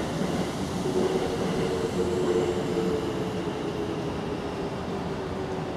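Steady rumble of a passing vehicle, with two close steady humming tones that come in about a second in, are loudest soon after, and fade near the end.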